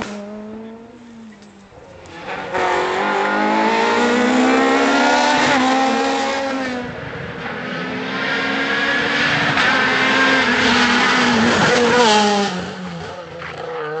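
Renault Clio R3 rally cars' naturally aspirated two-litre four-cylinder engines at high revs. One car fades away, then after a short lull another comes up hard, its engine note climbing and dropping through the gears, and is loudest as it passes about twelve seconds in.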